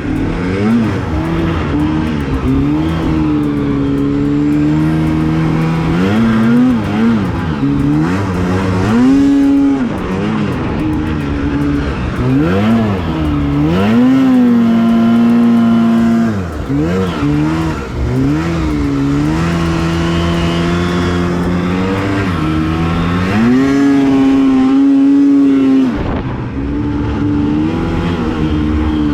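Two-stroke snowmobile engine revving up and down again and again as the sled rides through deep fresh powder, with the revs dipping and climbing every few seconds.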